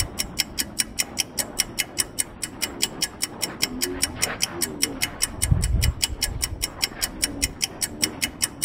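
Steady, even ticking of about five ticks a second, like a clock-tick beat in a backing music track. A brief low rumble comes about five and a half seconds in.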